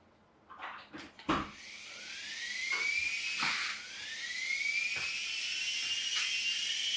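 Small electric drive motor of an Air Hogs Moto Frenzy RC motorbike spinning up in a rising whine after a few clicks and knocks, dropping with a knock about three and a half seconds in and climbing again.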